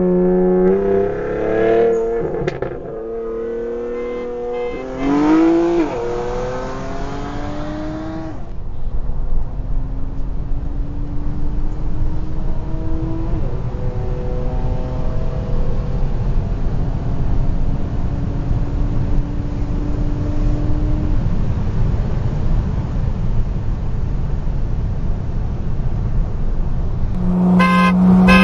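Car accelerating flat out in a roll race from about 30 mph, heard from inside a car's cabin. The pitch climbs over the first eight seconds, dropping back and climbing again twice. After that comes steady road and wind noise at highway speed with a faint whine slowly rising. Near the end another car sound starts as a steady tone and then rises.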